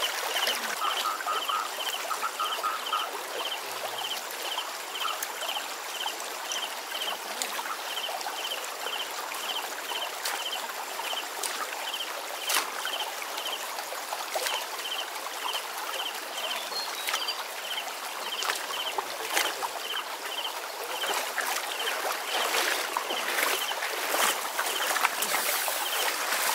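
Shallow stream water running steadily, with a short high chirp repeating about two to three times a second throughout. In the last few seconds there are irregular splashes and dripping as a wet cast net is handled in the water.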